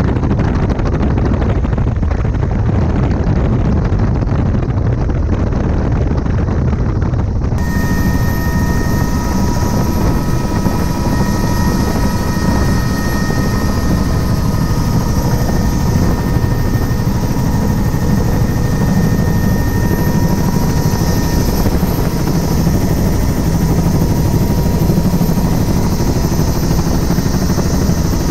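Helicopter in flight heard from on board: steady, loud rotor and engine noise. About seven seconds in, the sound suddenly turns brighter and a steady high whine of several tones joins it.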